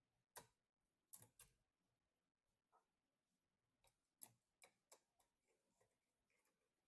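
Faint, sharp clicks and taps of computer hardware being handled and fitted, about eight of them spread unevenly over five seconds, then only a few softer ticks.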